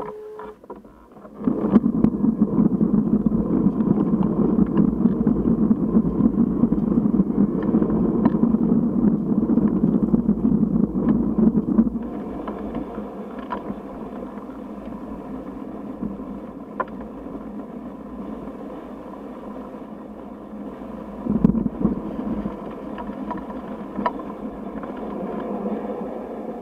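600cc supersport motorcycle engine heard onboard, running at moderate revs. It picks up about a second and a half in, runs louder for about ten seconds, then eases off to a quieter steady running with a short louder burst of throttle later on.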